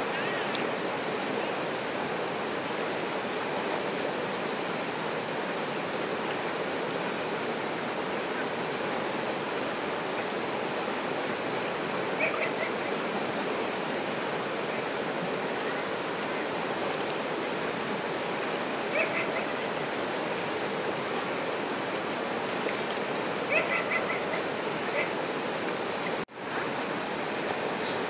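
River rapids rushing steadily over and around rocks, with a few short, faint calls now and then, and a brief cut-out of the sound about two seconds before the end.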